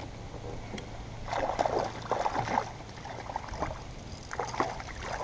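Water splashing in irregular bursts, about a second in and again near the end, as a small hooked northern pike thrashes at the surface while it is reeled in to the kayak.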